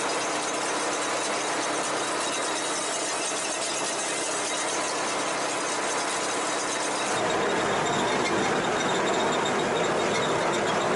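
Niva SK-5 combine harvester running while harvesting wheat, a steady mechanical whine with a high squeal. About seven seconds in it turns suddenly louder and deeper, the machine now heard from inside its cab.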